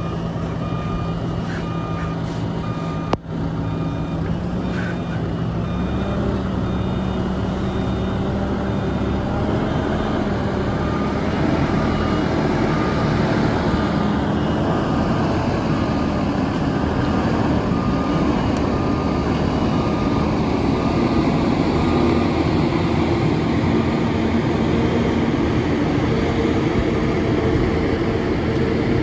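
Heavy diesel engines of a telehandler and a lorry working under load as the telehandler drags the lorry, stuck in mud, out on a tow strap, with a reversing alarm beeping repeatedly. The engine note steps up about six seconds in and gets louder again around eleven seconds, as the pull takes the strain.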